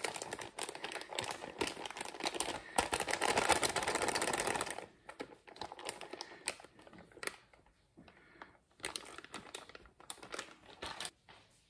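Plastic bag of riced cauliflower crinkling as it is opened and handled, a dense crackle for about five seconds. Then softer, scattered rustles and clicks as the bag is tipped and the cauliflower is shaken out into a bowl.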